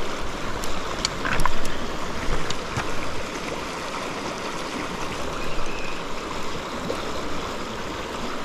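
River current flowing steadily in a continuous wash of moving water, briefly louder about a second and a half in.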